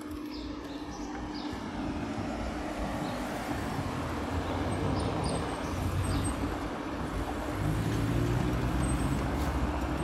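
City street traffic: cars driving through an intersection. A steady rush of tyres and engines grows a little louder, with an engine hum swelling near the end as a car passes close. A few faint bird chirps come in the first half.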